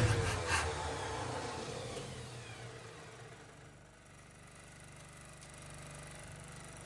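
1970 Ford F250 truck engine spinning down after a start attempt: a falling whine fades away over about two seconds, leaving a faint low steady hum.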